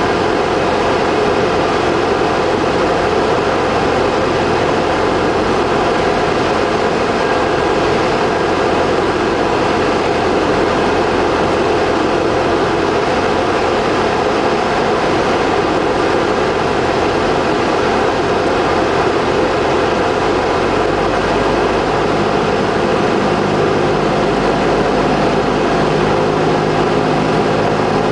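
Cockpit noise of a Cessna 172P in flight: its four-cylinder Lycoming engine and propeller running steadily under a loud rush of air. About two-thirds of the way through, the low engine tones shift as the power setting changes on the landing approach.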